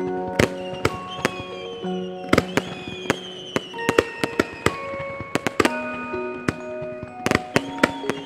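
Background music of held, overlapping notes, with irregular sharp bangs of fireworks bursting throughout.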